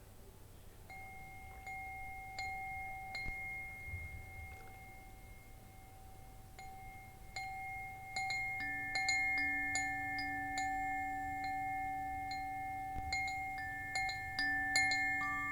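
Wind chimes ringing, their tubes struck at irregular intervals with long sustained tones. The chimes start faint and sparse, then grow more frequent and louder, and a lower-pitched chime joins a little past halfway.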